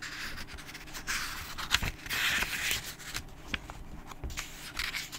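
Paper rustling as the pages of a book are handled and turned, with irregular swishes and a few sharp clicks.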